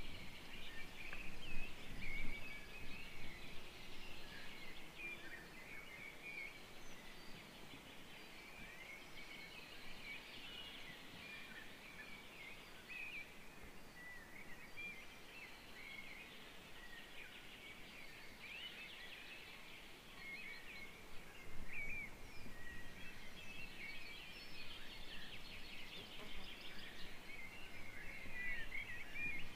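Forest songbirds singing together: a steady chorus of many short, overlapping chirps and warbles. There are brief low rumbles near the start and again about two-thirds of the way through.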